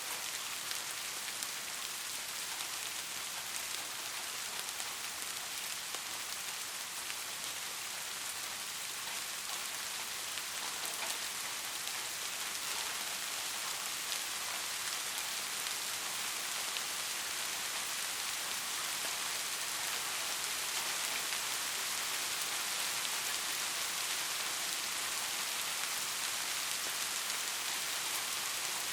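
Soft rain falling steadily, an even hiss of many small drops pattering on a surface.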